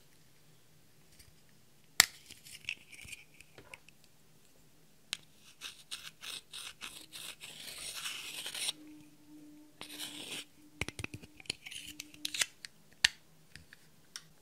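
A sharp click about two seconds in as a plastic eyeshadow compact is opened. Then come bouts of scratching and scraping as pressed eyeshadow powder is dug and crumbled out of its pan with a hand tool, with scattered small clicks.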